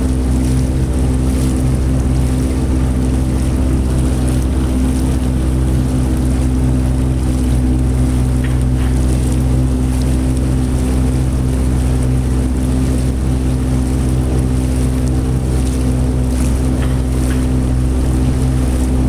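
Outboard motor running at a steady speed while the boat cruises, an even hum with a steady hiss of water and wind over it.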